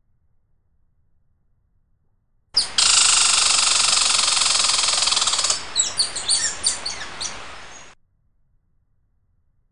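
A dense chorus of many birds chirping at once, cutting in suddenly and stopping abruptly; after a few seconds it thins into separate quick chirps as it fades.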